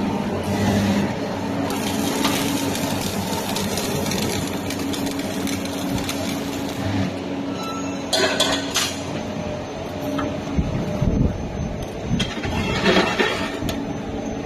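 Chain flash welding machine running with a steady electrical hum, with louder bursts of noise about eight seconds in and again near the end.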